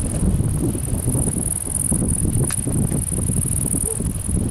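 Wind buffeting the microphone in a low, uneven rumble, over a steady high-pitched chirring of insects in the grass. A faint click about two and a half seconds in.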